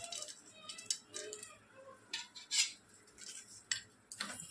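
Steel spoon clinking and scraping against a stainless steel plate of poha, several sharp clinks with quiet rustling between.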